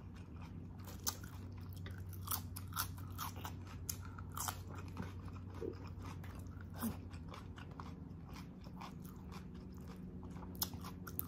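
Close-up mouth sounds of a person eating braised oxtail adobo by hand: chewing with wet smacks and irregular short clicks, several a second, over a faint steady low hum.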